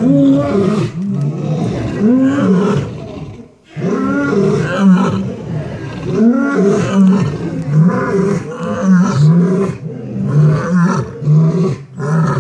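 Lions roaring: a long run of short, loud, repeated roars with a brief pause about three and a half seconds in.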